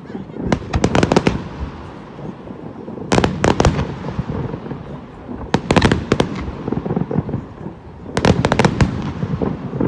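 Fireworks going off: four quick clusters of sharp bangs, a couple of seconds apart, over a continuous low rumble.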